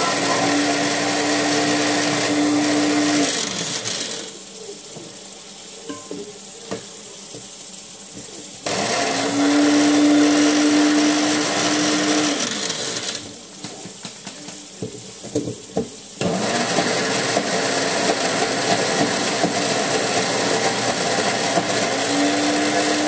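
An electric kitchen appliance motor runs in three bursts, a few seconds each. The whine rises as it spins up and falls as it winds down. In the pauses between runs, a few light knocks of a spatula against the cooking pan can be heard.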